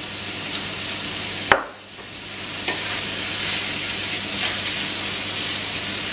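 Strips of chicken sizzling as they fry in a pan, stirred and scraped with a wooden spatula. A sharp click about a second and a half in, after which the sizzle dips briefly and builds back up.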